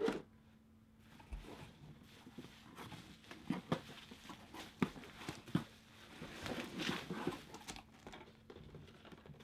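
Hands rummaging through a cardboard shipping box: rustling and scraping of cardboard and packing, with a few sharp knocks as a boxed vinyl figure is pulled out.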